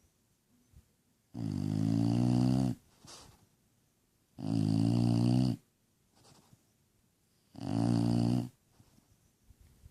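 Bulldog snoring in its sleep: three snores about three seconds apart, each lasting a second or so.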